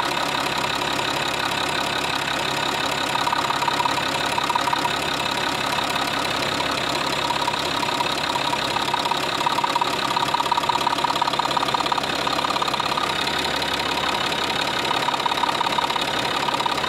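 Citroën C6's UHZ (DT17TED4) 2.7 V6 HDi diesel idling steadily with a subtle tapping from the injection. The owner suspects a slightly sticking injector.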